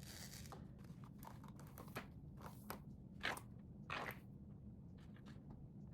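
Faint scattered crackles and light taps, with a few louder clicks in the middle, from hands handling and stretching the freshly washed wet wig to dry.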